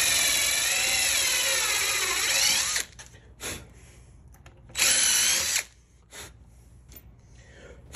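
Cordless drill running as it pre-drills a pilot hole for a screw into a hardwood tabletop, a steady motor whine that wavers in pitch and stops a little under three seconds in. A second short burst of drilling comes about five seconds in, with a few light knocks in between.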